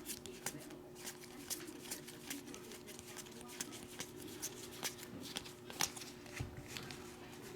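Trading cards being handled and flipped one after another: irregular soft flicks and clicks of card stock, a few each second, over a steady low hum.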